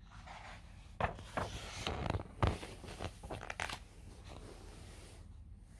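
Pages of a paperback picture book being handled and turned: irregular paper rustling and light scraping with a few sharper snaps, lasting about three seconds.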